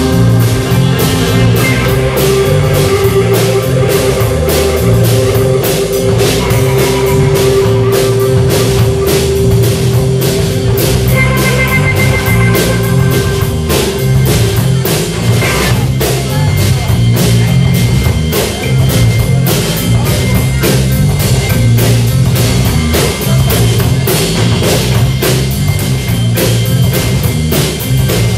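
Loud rock music from a band: a drum kit keeping a steady beat under electric guitar, with held notes ringing over it.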